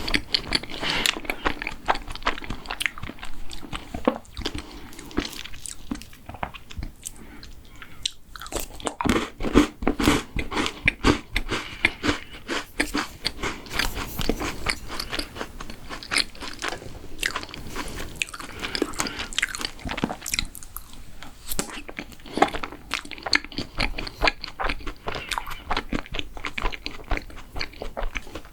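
Close-miked eating of mint chocolate desserts: steady chewing and biting with many small crisp crunches.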